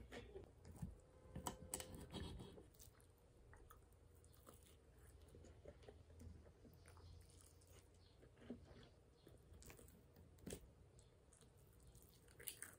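Faint chewing of a breaded, fried pork cutlet, with a few light clicks of cutlery on the plate in the first two seconds and again near the end.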